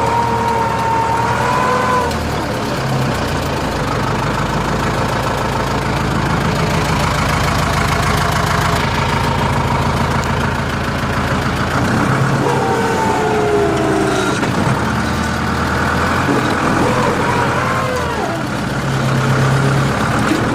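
Hürlimann H-470 tractor's diesel engine running steadily under load while ploughing, its note dipping and rising a few times in the second half.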